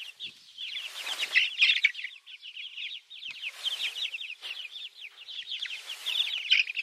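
A flock of young brown chickens peeping and chirping nonstop, many short high calls overlapping, with a few brief bursts of rustling in between.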